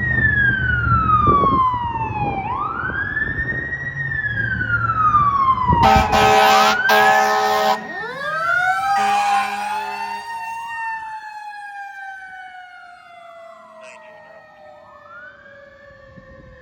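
Fire apparatus sirens wailing up and down over a truck engine's rumble. About six seconds in, a fire engine's air horn sounds in two blasts. The sirens then fade into the distance as the rigs move away.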